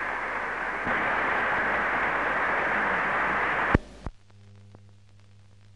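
Audience applause in a hall at the end of a speech, rising into a dense, even crackle on an old film soundtrack. About four seconds in it cuts off with two sharp clicks at a splice, leaving faint hiss, a low hum and scattered ticks.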